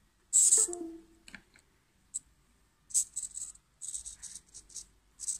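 Blue micro hobby servos of a two-axis pan-tilt camera mount whirring in short bursts as potentiometers are turned to swing the camera. There is a longer burst about half a second in, then a run of quick, stuttering bursts from about three seconds on.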